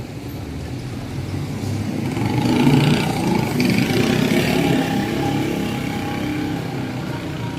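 A motor vehicle's engine passing close by, growing louder to about three seconds in, then slowly fading.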